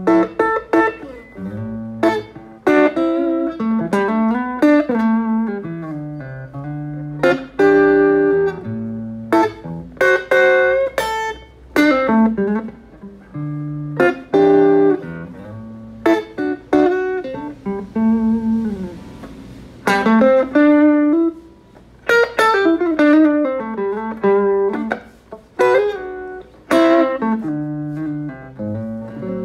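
Electric guitar played through a handwired 5-watt all-tube combo amp built on the 1950s 5F1 Champ circuit: picked single notes and chords that ring out and decay, in phrases with short pauses between them.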